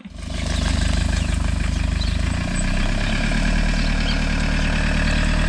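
Hymer motorhome's engine running at a steady idle.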